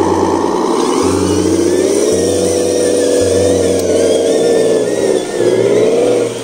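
Handmade RC miniature truck's small electric motor and gearbox whining as it drives under load, the pitch climbing over the first few seconds, dipping about five seconds in, then rising again.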